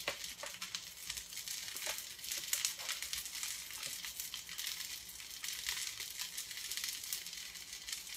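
Künefe of shredded kadayıf pastry frying in its metal künefe pan on the stovetop: a steady crackling sizzle with many fine ticks.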